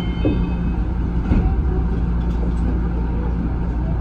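Stopped Tama Toshi Monorail train's onboard equipment humming steadily, heard from the driver's cab, with a light click a little over a second in.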